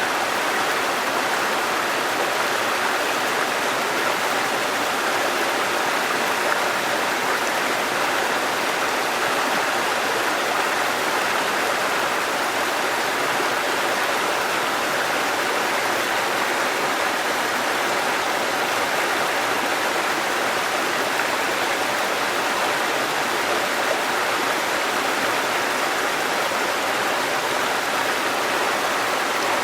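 Waterfall: steady, unbroken rush of falling water, an even hiss strongest in the middle range, with no changes or separate splashes.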